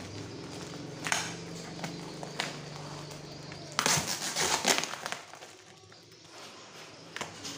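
Brown packing tape and cardboard wrapping being ripped off a parcel by hand. A few small crinkles and scrapes come first, then a loud tearing rustle about four seconds in.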